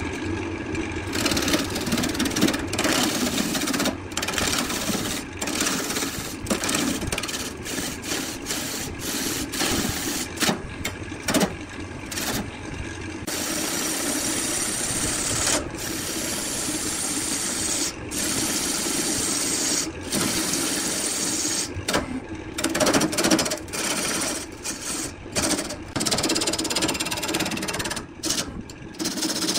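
Burt wood lathe running while a hand-held turning tool cuts a spinning wood blank: a harsh, rough cutting noise broken by many short gaps.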